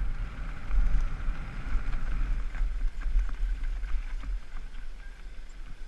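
Downhill mountain bike running fast over dry dirt and loose gravel, heard from a helmet-mounted camera: a steady low rumble of wind buffeting the microphone, with tyre noise and small knocks from the bike over the bumps.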